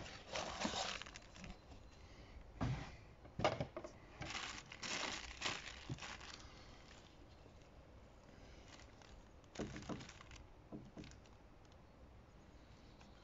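The packaging of a new fuel filter, a cardboard box and a plastic bag, rustling and crinkling in short irregular bursts over the first six seconds or so as it is unpacked and handled, then a few fainter handling rustles near ten seconds.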